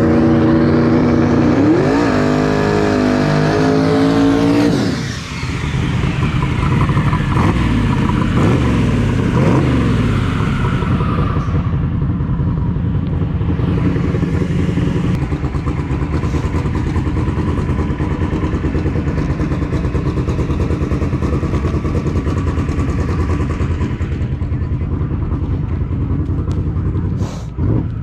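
Street-racing car engine at full throttle, its pitch climbing in steps for about five seconds, then falling away as it passes. After that comes a steady, loud engine drone during a burnout.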